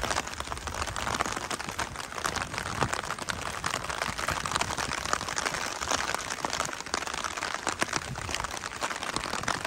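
Rain pattering on a see-through plastic umbrella held close overhead: a dense, even crackle of many small drop hits.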